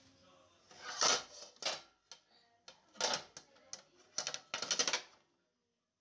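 Dishes and metal trays clattering against each other and the dishwasher's wire rack as they are handled: a few sharp knocks about one and three seconds in, then a quick rattling run of clicks near the end.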